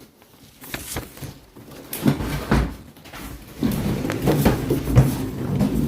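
Portable compressor fridge freezer being pulled along on its wheels: scattered knocks and clunks, then from about halfway a low rolling rumble with irregular knocks.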